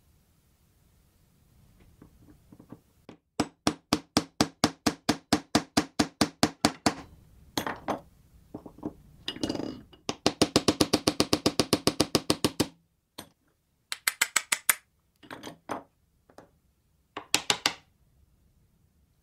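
Hammer tapping a steel hex bolt head-down into a round hole in a plywood block, driving the bolt head in to form a hexagonal recess for a nut. The taps come in quick runs, about five a second and then about eight a second, with a few shorter bursts of taps near the end.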